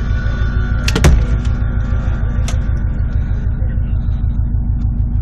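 Subaru Impreza GT's engine idling steadily, heard from inside the cabin, with a sharp knock about a second in and a lighter click a little later.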